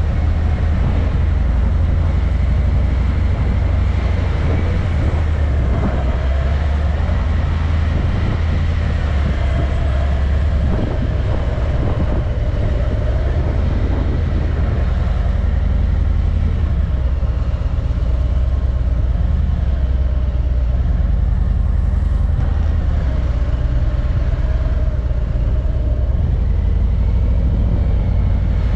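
Car being driven: a steady low rumble of engine and road noise.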